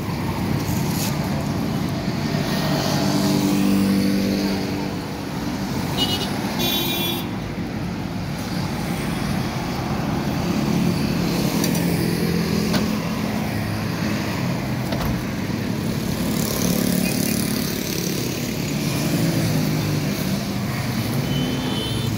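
Road traffic noise: vehicle engines running and passing, a steady hum, with a brief high-pitched sound about six to seven seconds in.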